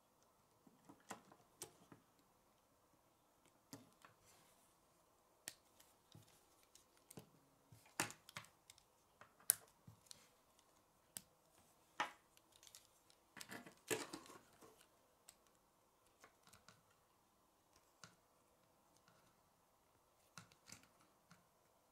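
K'nex plastic rods and connectors clicking and snapping as they are fitted together by hand: irregular single clicks with pauses, a quicker cluster in the middle.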